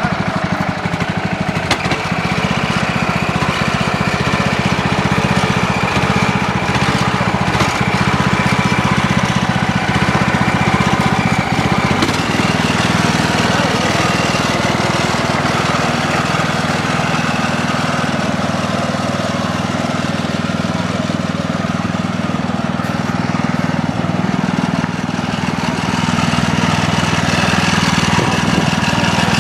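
Ride-on lawnmower's small petrol engine running continuously at a steady pace, its pitch shifting slightly about twelve seconds in.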